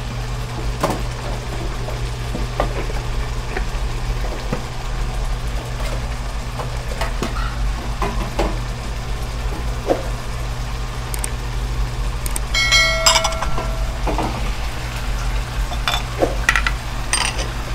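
Mushroom and tomato sauce simmering in a wok, bubbling and popping softly over a steady low hum. A brief pitched tone sounds about two-thirds of the way through.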